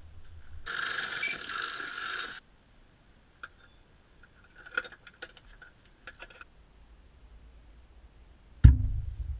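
Workshop work sounds in turn: a harsh rasping noise lasting under two seconds, then a scatter of sharp clicks from a hand socket wrench being worked on a bolt under the vehicle, and one loud knock near the end, the loudest sound.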